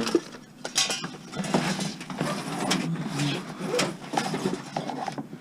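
Irregular knocks, scrapes and rustling from discarded junk being handled and moved.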